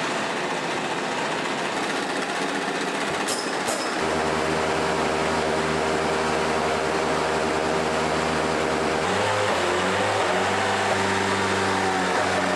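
Peugeot 908 HYbrid4 race car running: a loud, steady mechanical drone with a rushing edge, its pitch stepping to a new level about four seconds in and again about nine seconds in.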